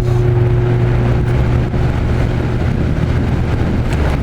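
Vintage 1980s Edison 20-inch box fan running on its medium setting: a steady low motor hum under a rush of air from the blades.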